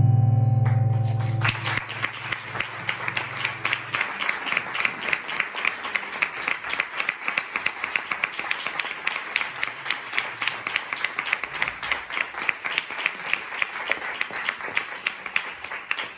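A held musical chord dies away in the first second or so, and an audience's applause takes over, steady until it cuts off suddenly near the end.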